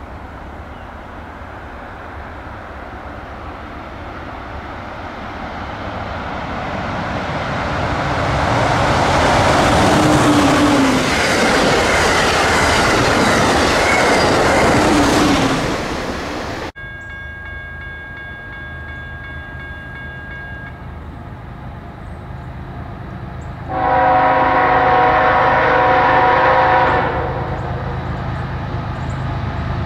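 Amtrak passenger train passing close by: its rolling noise and wheel clatter build, hold loud for several seconds, then stop abruptly. Then a Norfolk Southern freight train approaching, its locomotive horn sounding faintly at first and then in a loud blast of about three seconds, over the low rumble of the diesel locomotives.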